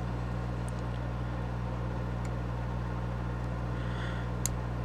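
Steady low hum of a running fan or appliance, with a few faint small clicks and one sharper tick near the end as small parts of a model locomotive are worked loose.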